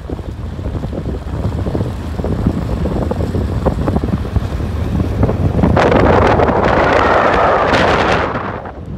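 Wind buffeting the microphone with a low rumble from a moving vehicle, swelling into a louder rush from about six seconds in and easing off near the end.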